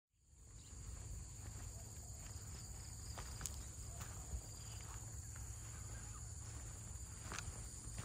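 Insects droning steadily at a high, even pitch, fading in at the start, with a low rumble underneath and a few faint clicks.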